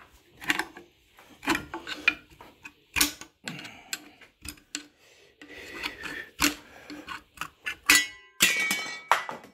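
Screwdriver prying and scraping at the sheet-metal cover plate pressed into a WSK125 crankshaft web held in a vise: a run of irregular metallic clicks, knocks and scrapes. Near the end comes a louder ringing clank of the thin plate, as the cover is levered open.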